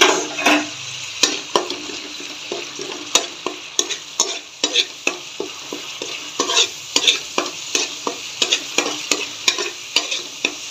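A metal spatula stirring and mashing ground spices into sizzling oil and tomato in a pan: a steady sizzle of the masala frying, with sharp scrapes and taps of metal on the pan a few times a second.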